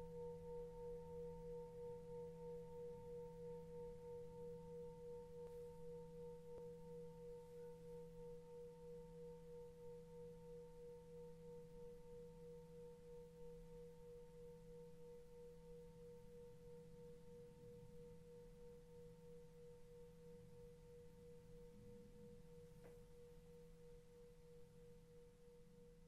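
Tibetan singing bowl ringing after a strike, one steady tone with a slow wavering pulse, slowly dying away.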